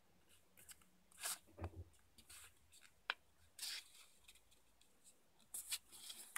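Sheet of printed paper being folded and creased by hand: a scatter of faint rustles and crinkles, with a sharp tick about three seconds in.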